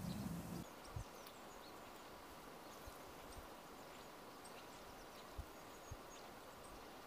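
Faint outdoor ambience with scattered short, high chirps of small birds, and a few soft low thumps.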